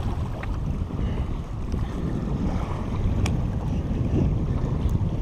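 Wind buffeting an outdoor microphone: a steady low rumble, with a few faint clicks from handling.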